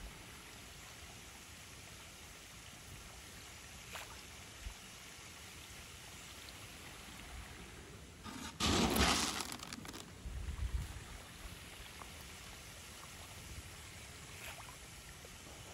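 Steady faint trickle of running water, with a loud burst of noise about nine seconds in and a shorter, weaker one a second or so later.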